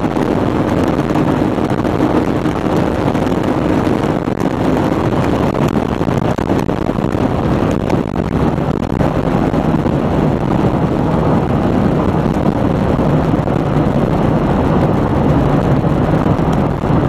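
Loud, steady wind and road roar inside a car's cabin at very high autobahn speed, the car slowing from about 325 to 220 km/h. Under it runs a faint engine tone that sits lower in the second half.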